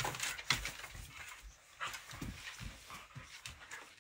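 A boxer and an American Bully puppy play-fighting on a hardwood floor: claws scrabbling and clicking on the wood, with a few short, low growls and grunts.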